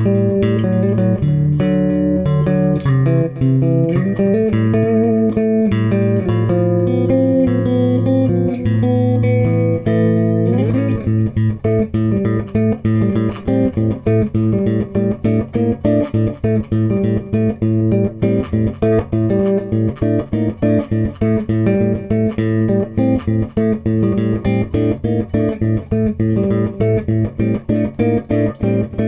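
Improvised guitar music: picked guitar notes over a steady low note, turning to quick, busy picking about eleven seconds in.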